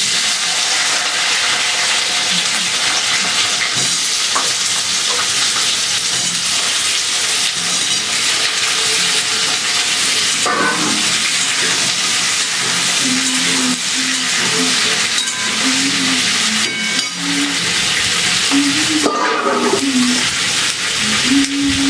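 Thinly sliced vegetables (pumpkin, flat beans, radish, potato) frying in hot mustard oil in a steel kadai, with a steady loud sizzle that starts suddenly as they go into the oil. A metal spatula stirs them now and then.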